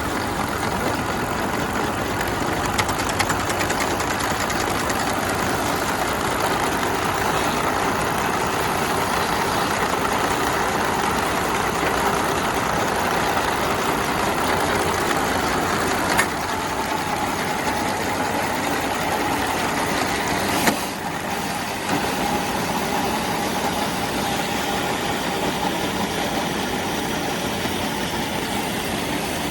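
Farm feed-processing machine running with a steady, loud mechanical din. There are two sharp knocks, about halfway through and again a few seconds later, and the noise dips briefly after the second.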